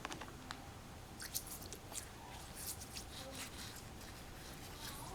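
Brush scrubbing a cold-blued steel pistol part, wet from warm water: faint, irregular scratchy strokes, brushing off the loose black oxidation left by the cold blue.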